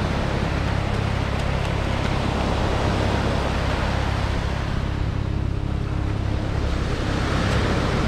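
Wind buffeting the microphone with a low rumble over the steady wash of surf on a sand beach; the hiss of a breaking wave swells near the end.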